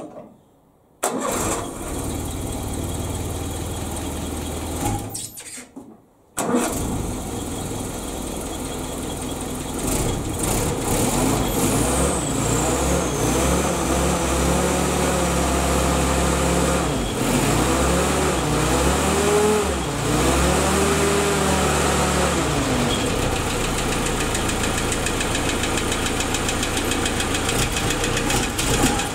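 Willys Jeep four-cylinder engine starting about a second in, cutting out after a few seconds and starting again, then running at idle with the revs rising and falling a few times. It runs with an engine knock.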